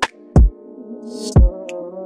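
Background music: an electronic beat with held synthesizer chords and two deep bass drum hits about a second apart.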